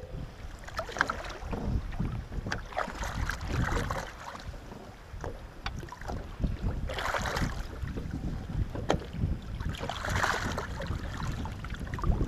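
Wind rumbling on the microphone over water sloshing against the boat and a landing net held at its side, with scattered light knocks and two louder splashes about seven and ten seconds in.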